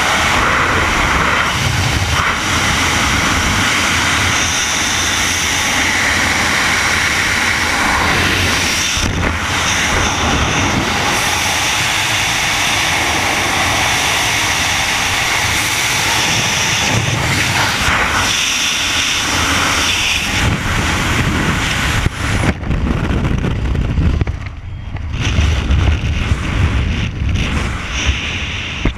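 Freefall wind rushing over a helmet camera's microphone, a loud steady roar. About 22 seconds in it breaks up: the high hiss falls away into lower, uneven buffeting as the parachute opens and the fall slows.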